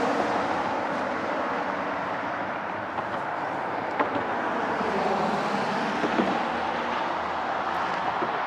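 Steady road traffic noise, a constant rush from passing vehicles, easing off slightly over the first few seconds, with a few faint clicks.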